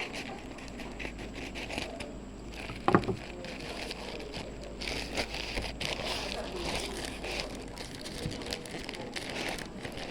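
Plastic packaging crinkling and rustling as it is handled and opened, with a sharp knock about three seconds in.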